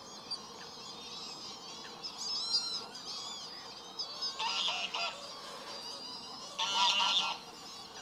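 Greylag geese honking in two short bouts, about four seconds in and again near seven seconds, the second the louder. Thin, high calls of smaller birds go on underneath.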